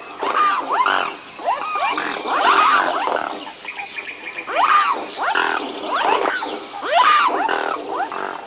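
A group of swans calling, many loud calls overlapping, each rising then falling in pitch, in clusters that swell every couple of seconds.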